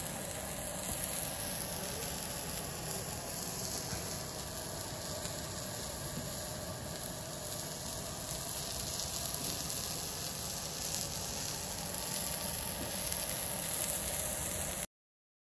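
Yakitori chicken skewers sizzling steadily on a grill plate over a portable cassette gas stove. The sound cuts off suddenly near the end.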